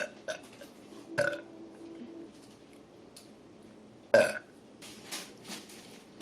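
A woman burping several times: short burps at the start and about a second in, and the loudest burp about four seconds in.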